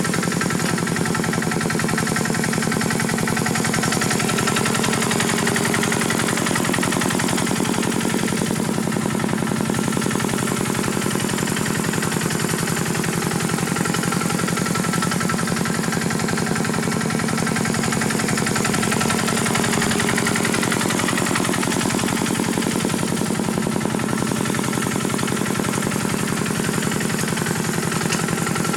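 Small tractor engine running steadily at an even speed, with a rapid regular knock.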